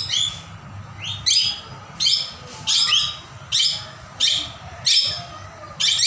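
Parakeets in an aviary giving short, shrill calls, repeated about once or twice a second, some in quick pairs.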